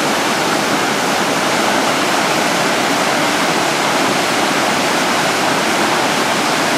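Waterfall: water rushing steadily down broad sloping rock slabs, a loud, even roar.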